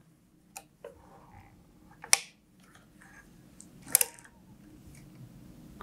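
Mostly quiet room with a faint hum, broken by a few short sharp clicks, the loudest about two seconds in and again about four seconds in, as the garment is handled at a sewing machine.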